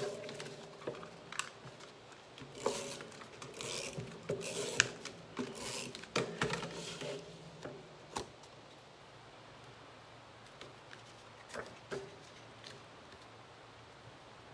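Card and paper being handled and pressed down on a craft mat: scattered taps, clicks and short rustles for about the first eight seconds, then only a few faint ticks.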